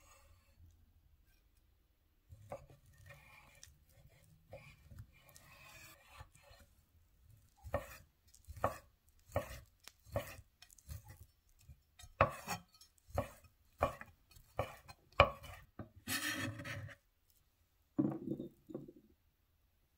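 Chef's knife cutting a sausage on a wooden cutting board: quiet slicing strokes at first, then a steady run of sharp knocks of the blade on the board as it is diced, about one or two a second. Near the end, the diced pieces drop into a ceramic bowl.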